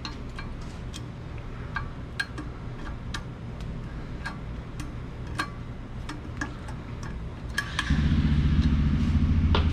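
Light, irregular metal clicks and taps as pliers work an E-clip back onto the shaft of a compressed CVT secondary clutch. Under them is a low hum, and about eight seconds in a louder steady low machine hum starts.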